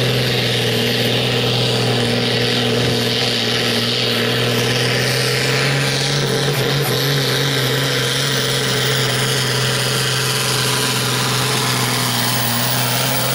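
Diesel engine of a standard-class pulling tractor running flat out under heavy load as it drags a weight-transfer sled, a steady drone whose pitch holds level, with a brief wobble about six seconds in.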